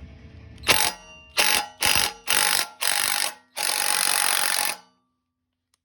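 Impact wrench hammering in six short bursts, the last and longest about a second, driving an M12 bolt against a makeshift puller to press a BMW E30 rear hub out of its wheel bearing.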